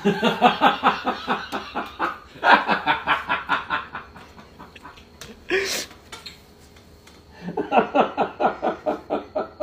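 Hearty, helpless laughter in long runs of quick ha-ha pulses. It eases off partway through, with a short sharp breathy burst about five and a half seconds in, then breaks out again near the end.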